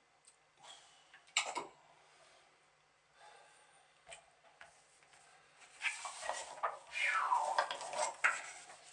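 Clicks and clatter of a hard plastic RC buggy chassis being handled while small screws are fitted to its skid plate. One sharp click comes about a second and a half in, and the handling is busiest near the end, with a squeak that falls in pitch.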